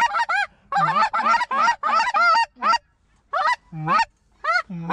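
Snow goose calls: short, high, yelping honks in quick runs of several at a time with brief pauses between, loud and close.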